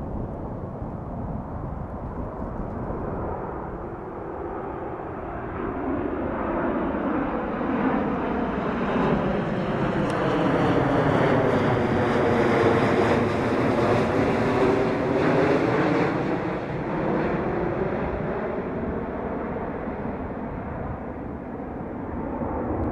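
Boeing 787 jetliner on landing approach with its gear down, flying low overhead. The engine roar builds, is loudest about halfway through, then fades as the plane moves away, with a high whine that drops in pitch as it passes.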